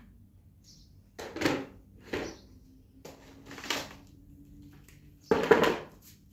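Four short bursts of clatter and rustling as things are handled or moved about a room. The loudest comes about five seconds in.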